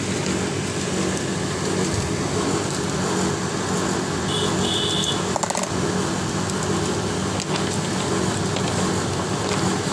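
Steady low background hum, with two short high beeps about four and a half seconds in.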